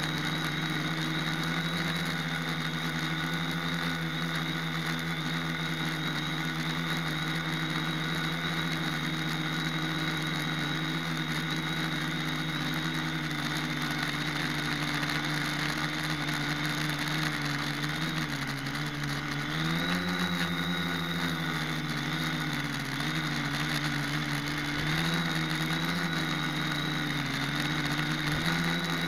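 Quadcopter's electric motors and propellers, heard from its onboard camera: a steady whining hum that shifts up and down in pitch with the throttle, rising briefly about two-thirds of the way through and again near the end.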